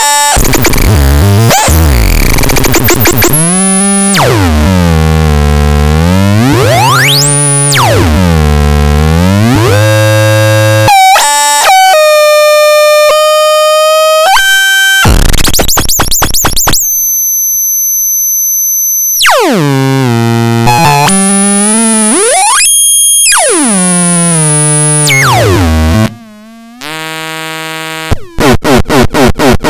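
Homemade noise-box optical theremin: buzzing electronic tones, rich in overtones, whose pitch swoops down and back up several times as the light on its light-dependent resistor changes. The swoops give way to steady held tones that jump between pitches, the sound drops away briefly late on, and it ends in fast, even pulsing.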